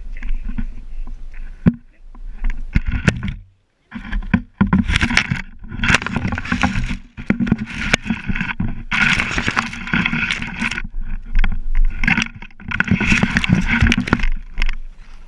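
Close, irregular rustling and scraping handling noise from an action camera fixed to a stick that a dog carries in its mouth through tall grass, with many sharp clicks and knocks and a brief drop to silence a few seconds in.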